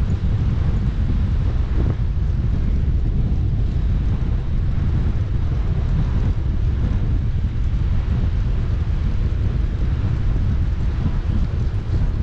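Wind buffeting a GoPro 8's microphone while cycling, a steady low rumble that does not let up.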